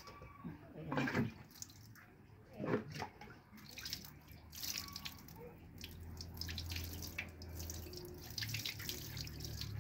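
Water splashing and dripping off a wet kitten during its bath, in irregular short splashes.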